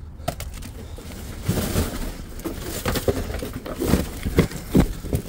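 Cardboard boxes and packaging being handled and shifted, with scattered knocks and rustles.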